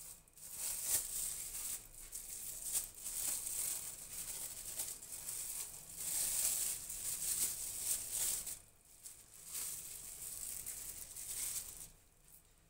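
Plastic cling film crinkling and crackling as it is peeled and unwrapped from a chilled rolled turkey tenderloin, in irregular crackles that stop near the end.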